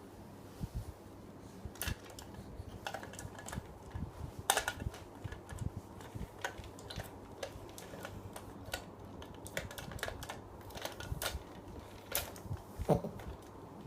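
Irregular light clicks and taps, a few a second with uneven gaps, the sharpest about four and a half seconds in and near the end, over a steady low hum.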